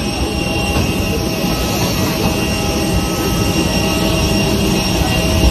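Steady jet aircraft noise during boarding: a constant high whine with several steady tones over a low rumble.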